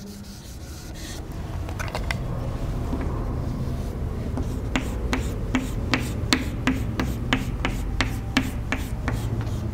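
Chalk on a chalkboard: a faint scrape at first, then quick diagonal hatching strokes from about halfway in, each a short sharp tap-and-scratch, about three a second, over a low steady hum.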